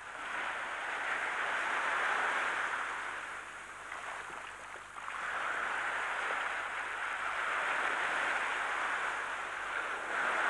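Shallow sea surf washing in and draining over a sandy beach, a steady rushing that swells twice, with a brief lull about halfway.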